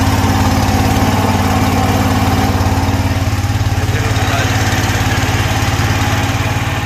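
Small wooden boat's engine running steadily under way: a loud, even low drone with a fast regular pulse, with a hiss of water and wind over it.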